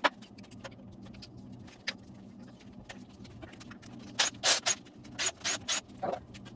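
Metal hand tools and bolts clicking and clinking as bolts are taken out of a V8 engine on an engine stand. There is a sharp click at the start, then a quick run of louder, ringing metallic clinks about four seconds in.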